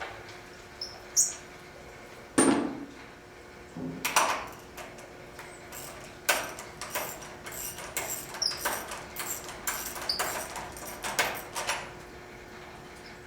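Metal clinks, knocks and clicks from clamps, bolts and tools being handled while a boiler door is unbolted, with a few short high squeaks. One louder knock comes about two and a half seconds in, and a dense run of clicking follows from about four seconds to near the end, over a steady hum.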